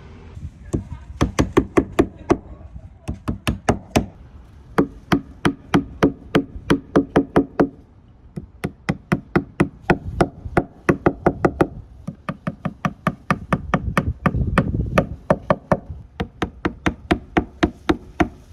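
Quick runs of sharp clicking knocks, about five a second, each run lasting one to three seconds with short pauses between, from fastening the PVC stair trim.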